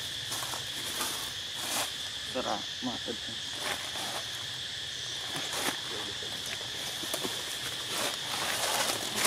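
Insects calling in a steady high drone, with a few short clicks and faint brief voice-like sounds around the middle.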